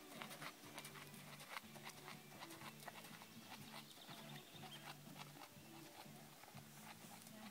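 Faint hoofbeats of a horse trotting on a sand arena.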